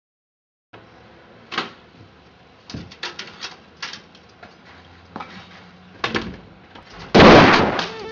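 A door being worked: a scatter of sharp clicks and knocks over faint room noise, then a loud, longer rush of noise about seven seconds in.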